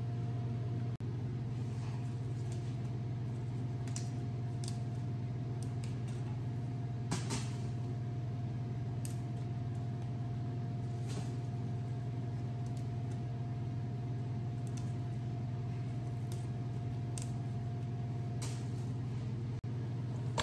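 Steady low hum with a faint steady higher tone over it, and scattered light taps and clicks of vegetables being handled on a plastic cutting board.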